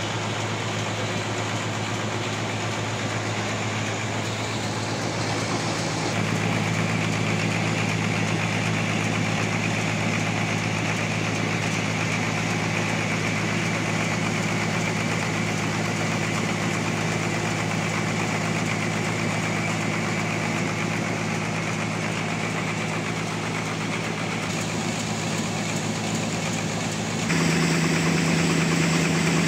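Sawmill engine running steadily with a constant drone. Its sound changes abruptly, growing a little louder about six seconds in and shifting higher near the end.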